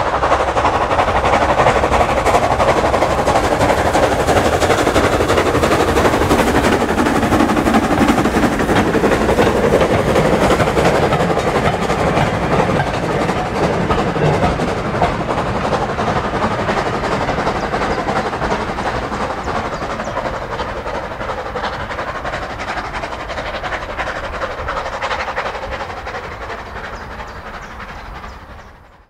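0-4-0 saddle-tank steam locomotive working a train of carriages past, its rapid exhaust beats mixed with the clatter of wheels on the track; loud at first, then fading away over the last ten seconds as the train draws off.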